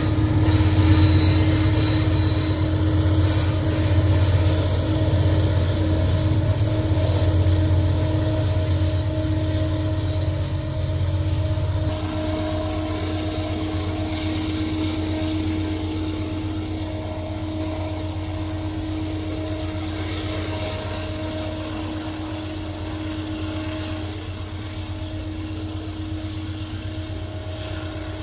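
GE AC44i diesel-electric locomotive running with a steady low engine drone and a hum. Slightly past the midpoint the hiss above the drone drops away, and the sound grows gradually quieter.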